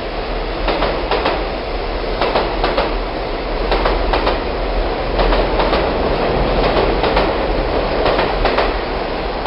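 Train running along the rails: a steady rolling noise with irregular sharp clicks from the wheels on the track.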